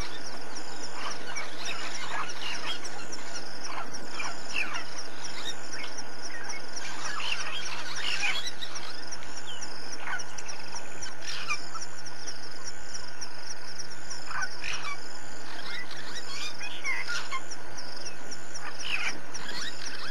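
Bush ambience: many short, falling bird chirps from several birds over a steady, pulsing high insect trill, with a faint steady low hum underneath.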